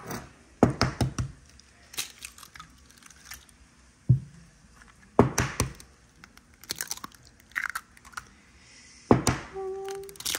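Kitchen handling noises: a scatter of sharp clicks and knocks from utensils and cookware being moved about, including a quick run of light clicks about a second in, and a heavier knock near the end followed by a brief ringing tone.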